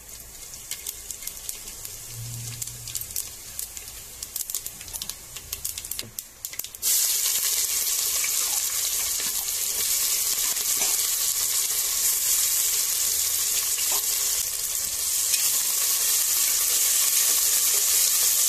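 Whole spices crackling and spluttering in hot oil in an aluminium pressure cooker. About seven seconds in, chopped onions and tomatoes go in and the sound turns abruptly into a loud, steady sizzle of frying.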